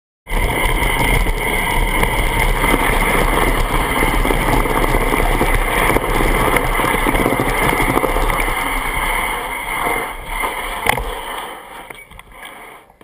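Mountain bike rolling fast over a dirt singletrack: a steady rush of wind buffeting the microphone mixed with the rattle of the bike over the trail. It dies away about ten seconds in as the bike slows to a stop, with a sharp click near the end.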